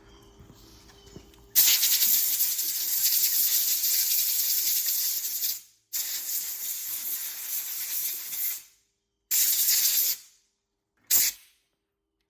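Compressed air blown from a blow gun, hissing in four sharp bursts: a long one of about four seconds, then shorter ones, the last very brief. It is drying and blowing off a small hydraulic seal just washed in the parts washer.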